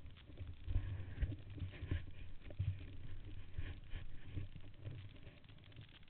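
Muffled low rumble and irregular thumps of a Yamaha YFZ450 quad riding a rough, muddy trail, heard dully through the helmet camera. It grows quieter near the end.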